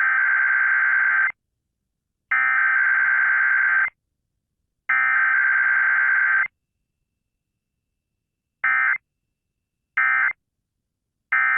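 Emergency Alert System SAME data tones for a weekly test: three buzzing digital data bursts of about a second and a half each (the header), then after a pause three short bursts about a second and a half apart (the end-of-message code).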